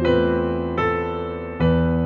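Slow background piano music: a new note or chord is struck about three times, each ringing on and fading before the next.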